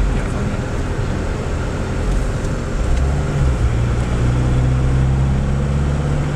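Car cabin noise while driving: a steady low engine drone and tyre rumble from the road, with the engine's hum growing stronger about three seconds in.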